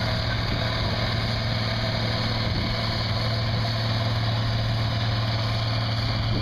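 Tractor engine running at a steady speed, a deep unchanging drone with no revving.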